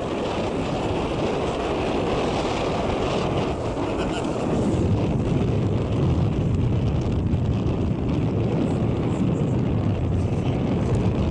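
Wind buffeting the microphone while travelling along a road: a steady low rumble of wind and road noise.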